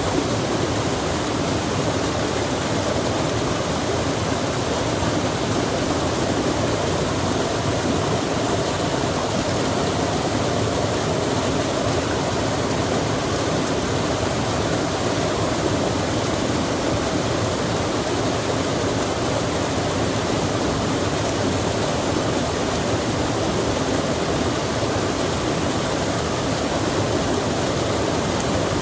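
Running water rushing steadily and evenly, with no change in level throughout.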